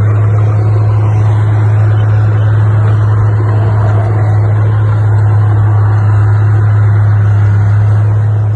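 Heavy diesel machinery engine running at a steady speed, a constant low hum with mechanical noise above it.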